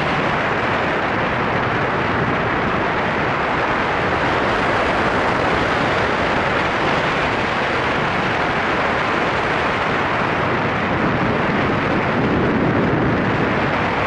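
Steady rush of wind over the microphone of a foot-launched powered hang glider descending in flight, swelling slightly near the end.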